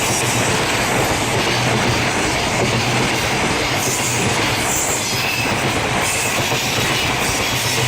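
Freight train hauled by an EF200 electric locomotive passing: a loud, steady noise of wheels running on the rails, with no breaks.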